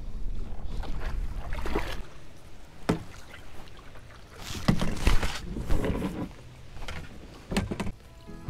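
Kayak paddle dipping and splashing in the water, with wind rumbling on the microphone and a few sharp knocks against the kayak.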